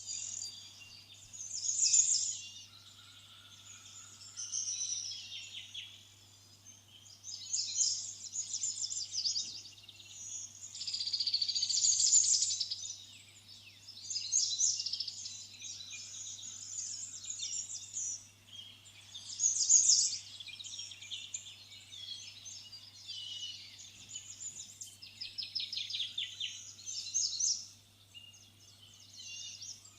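Small birds chirping and trilling in repeated bursts of rapid high notes, over a faint steady low hum.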